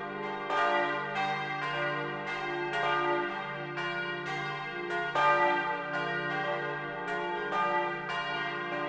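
Full peal of four bronze church bells tuned d', f', g' and b' (cast 1950 by Junker of Brilon) swinging together, heard close up inside the bell tower. Strikes come in an uneven overlapping sequence, about one or two a second, each ringing on beneath the next, with a deep hum under it all.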